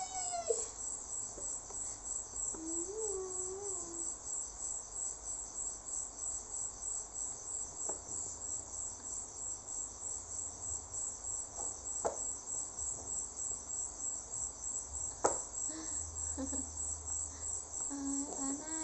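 Steady high-pitched chirping that pulses about three times a second throughout. A baby's soft gliding vocal sounds come about three seconds in and again near the end, with a few light clicks in between.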